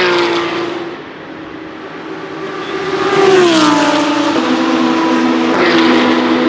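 GT racing cars passing at speed. The engine note drops in pitch as the first goes by right at the start and a second about three seconds in, then a steady engine note runs on.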